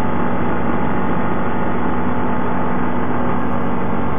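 ATV engine running at a steady speed while riding a gravel road, a steady hum over the noise of tyres and wind.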